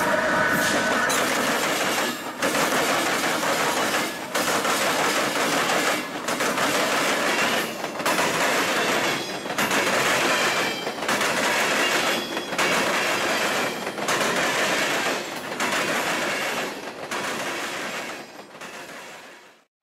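A CSX freight train passing close by: the locomotives go past at the start, then a long string of autorack cars rumbles and clatters over the rails. The noise dips briefly about every one and a half to two seconds as each car goes by, and fades near the end.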